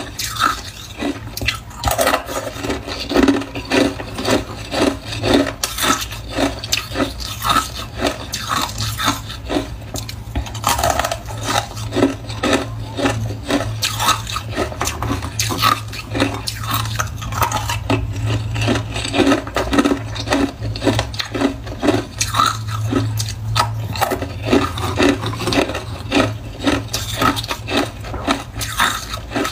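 Close-up crunching and chewing of frozen cola ice, a fast continuous run of crisp crunches several times a second.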